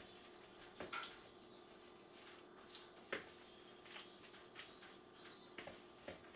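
Faint, irregular scrapes and taps of a utensil stirring a thick cheese filling (ricotta, cream cheese, mozzarella, Parmesan) in a flimsy plastic mixing bowl.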